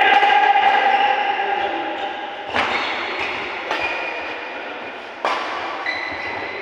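Badminton rackets striking a shuttlecock in a rally: three sharp hits, about a second apart, starting about two and a half seconds in. Before them a held high-pitched tone rings for a couple of seconds.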